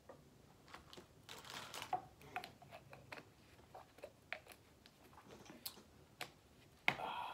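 Small clicks, taps and plastic rustles of a plastic drink bottle being handled after a drink, its cap twisted and fiddled with; a sharper click near the end.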